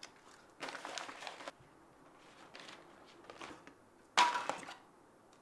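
Rummaging through things under a table: objects shuffled and knocked about, with a louder clatter about four seconds in.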